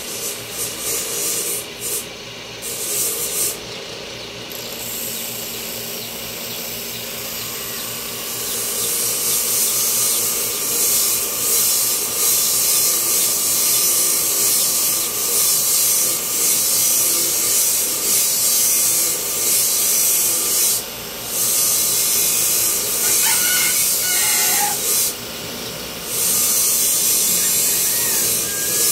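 Power tool grinding, a steady hissing rasp. It is lighter and broken for the first several seconds, then steady and louder from about eight seconds in, with two brief breaks near the end.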